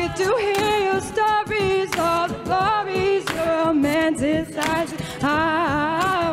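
A cappella group singing an R&B song: a female soloist sings the lead melody through a microphone over the group's sustained backing vocals.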